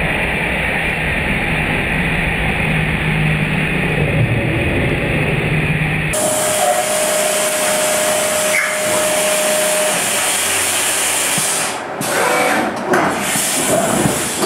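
Haas CNC vertical mill roughing a metal block with an end mill under flood coolant. For the first six seconds the sound is slowed down, low and muffled; then, at normal speed, the cut is a steady whine over the hiss of coolant spray, and it turns uneven near the end.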